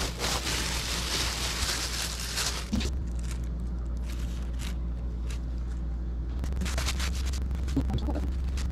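Thin plastic grocery bags crinkling and rustling as hands dig through wild persimmons and pull the tops off the fruit, with many small crackles over a steady low hum.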